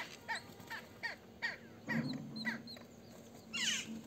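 Mynas and crows calling: a run of short, sharp, falling chirps about twice a second, with a harsher call a little before the end.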